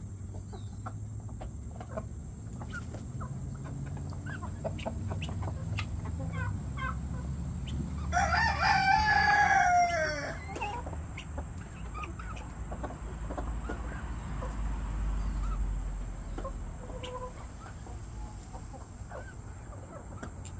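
Chickens clucking softly while they peck at scattered grain, and about eight seconds in a rooster crows once, loudly, for about two seconds, the call falling at the end.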